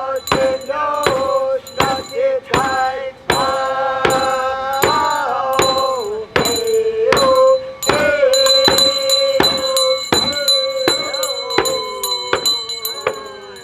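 Native song sung to a steady struck hand-percussion beat, roughly one strike every two-thirds of a second. The voice holds long notes, then slides down and fades as the song ends near the close.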